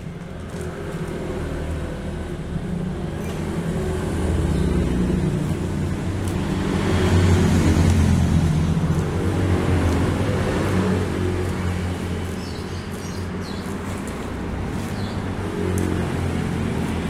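A motor vehicle engine running steadily, getting louder around the middle and then easing off.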